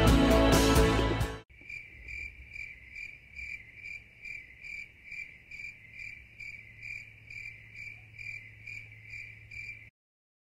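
Music cuts off suddenly about a second and a half in, followed by cricket chirping: a steady, even run of high chirps, about two or three a second, that stops shortly before the end.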